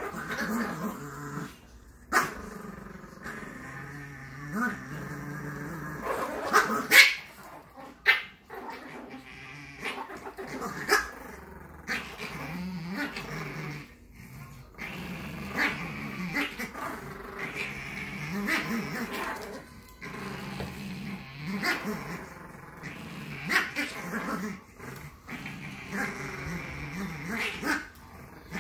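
Two Chihuahuas play-growling steadily in a tug-of-war over a toy, broken by a few sharp yaps.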